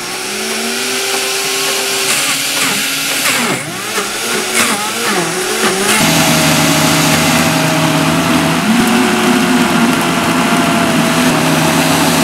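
Two high-powered blenders, an Omega BL630 and a Vitamix Turboblend VS, running together on high through a thick, low-liquid coconut mixture while tampers push it down into the blades. The motor pitch wavers with the changing load for the first several seconds, then settles into a steady, loud whir.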